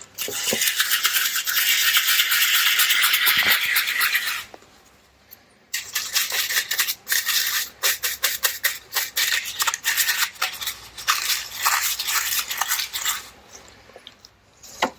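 Outboard carburettor body being cleaned: a steady hiss for about four and a half seconds, then after a short pause brisk scrubbing and rattling with many small clicks.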